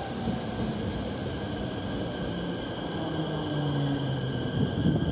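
A Keikyu 1000-series electric train running into the station platform, with a steady rumble of wheels on rail and several high steady whines. A thin high tone falls slightly in pitch in the first second.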